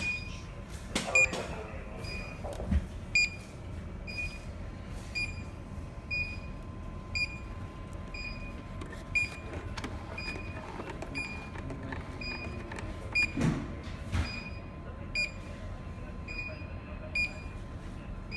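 An electronic alarm beeping steadily about once a second, each beep short and high-pitched, with a few dull knocks in between.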